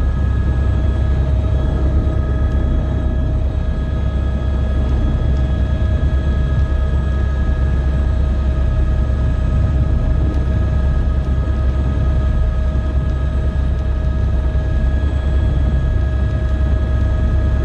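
Helicopter engine and rotor running steadily on the ground before takeoff, heard from inside the cabin: a deep, even rumble with a steady whine over it.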